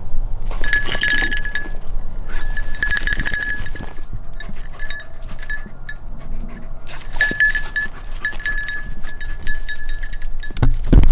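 Small bell on a hunting beagle's collar jingling in repeated bursts as the dog moves about. A loud low rumble comes near the end.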